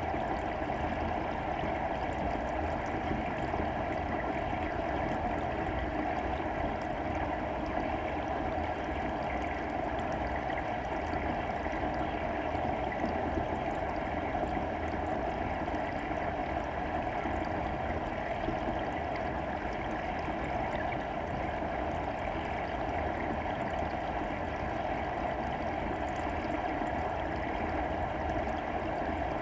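Steady, muffled rushing of water heard through an underwater camera's housing, with no separate splashes or knocks.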